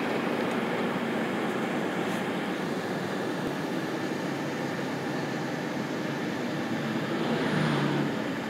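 Steady road and engine noise heard inside the cabin of a moving car, swelling briefly near the end.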